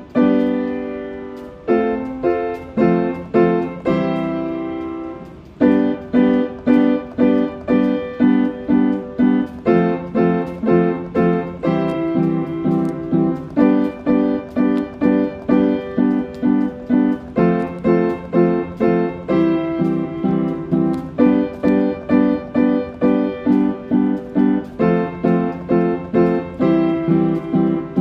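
Keyboard played with a piano sound: a few long held chords, then about five seconds in a steady run of repeated notes and chords at roughly two to three a second.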